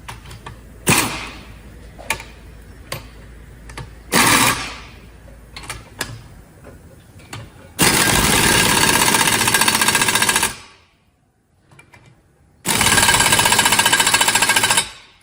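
Pneumatic impact wrench running in the bolts that fasten the carrier to a Meritor/Volvo axial air disc brake caliper, in two rapid hammering bursts of about three and two and a half seconds. Before them come a few sharp metallic knocks.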